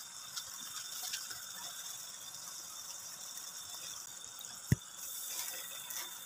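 Sauce sizzling and bubbling in a hot pan of stir-fried pork: a steady hiss with small crackles. A single sharp knock comes about three-quarters of the way through.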